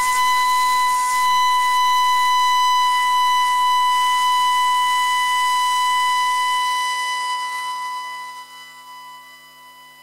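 Transverse bamboo flute (bansuri) holding one long, unwavering high note in raga Amritavarshini for about seven seconds, then fading away.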